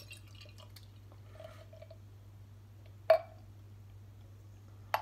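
Dark stout poured from a glass bottle into a stemmed glass: a faint trickle and glug of liquid, with two sharp clinks, one a little after three seconds and one near the end.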